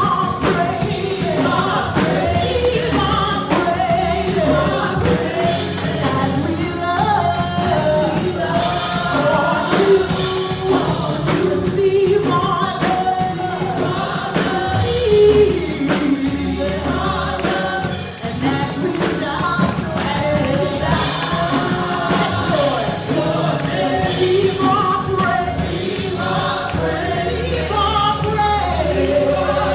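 Gospel choir singing a praise song with live band accompaniment, over a steady bass and a busy percussion beat.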